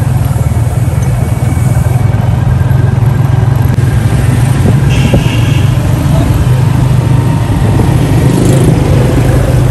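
Steady drone of a motorcycle engine running at a constant riding speed, heard from close by on the moving bike, with street traffic around.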